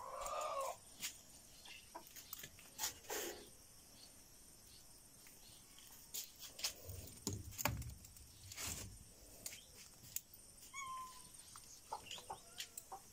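A short animal call near the start, then scattered clicks and knocks, with a brief chirp about eleven seconds in.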